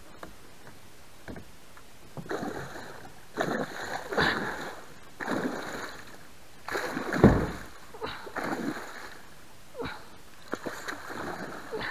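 Hooked muskellunge thrashing and splashing at the surface beside a kayak: a run of separate splashes over several seconds, the loudest about seven seconds in with a deep thump.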